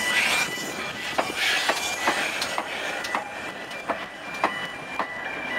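Steam locomotive 7828 Odney Manor, a GWR Manor-class 4-6-0, rolling slowly past close by: a run of sharp metallic clicks from the wheels on the rails, roughly two a second, over a steady hiss.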